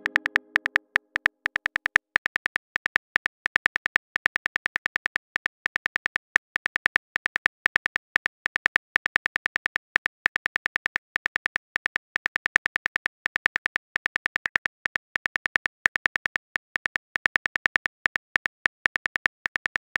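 Simulated phone-keyboard typing clicks from a texting-story animation: rapid, evenly repeated taps, several a second with short pauses between bursts. The ringing tail of a message-sent chime fades out in the first second.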